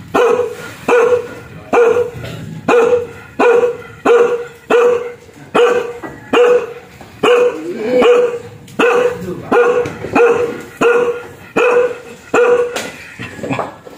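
Dog barking fiercely in a steady run of about seventeen loud barks, one every three-quarters of a second or so, trailing off into weaker, irregular barks near the end.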